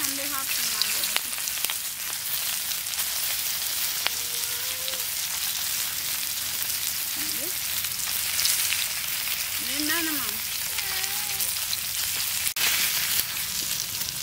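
Marinated quails frying in a pan: a steady sizzle with fine crackling. Faint voices come in briefly about ten seconds in.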